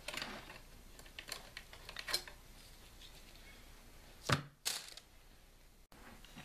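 Light metal clicks of an SVT-40 rifle's steel top piston cover being worked loose and lifted off the barrel, then two sharp knocks a little after four seconds in.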